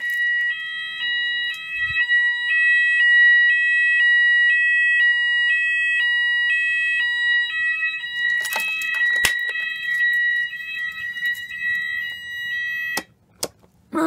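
Fire alarm sounder going off after a manual call point was activated. It plays a two-note tone alternating about twice a second over a steady high tone, and cuts off abruptly about a second before the end.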